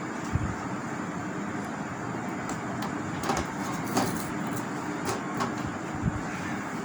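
A plastic TV front bezel being handled and fitted around an LED TV panel, giving a few light plastic knocks and clicks over a steady background hiss.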